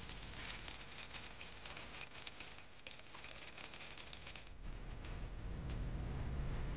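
Wire balloon whisk beating an egg-yolk, sugar and oil mixture in a glass bowl: fast clicking of the wires against the glass with a wet patter, stopping about four and a half seconds in. A low rumble follows and grows louder near the end.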